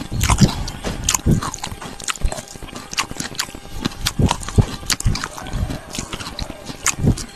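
A man chewing and biting raw beef dipped in chili sauce: wet mouth sounds with irregular clicks and smacks.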